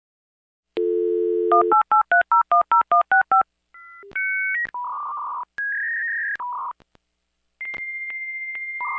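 Dial-up modem connecting. A telephone dial tone comes first, then a quick run of about ten touch-tone digits being dialed. After that come the modem's handshake tones and hiss, ending in a steady high answer tone.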